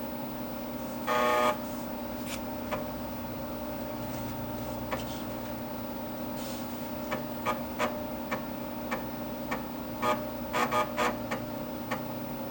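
Vintage computer booting DOS from floppy: a short electronic beep about a second in, then scattered clicks and ticks from the floppy drive reading the disk, over the steady hum of the machine's fan and drive motor.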